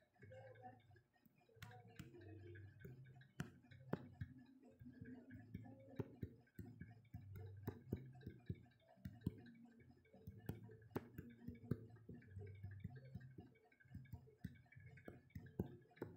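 Faint, irregular sharp clicks, roughly one every second or two, over a low background hum.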